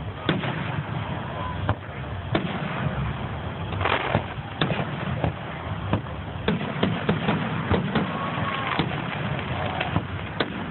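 Aerial firework shells launching and bursting: about a dozen sharp bangs at irregular intervals, coming closer together in the second half.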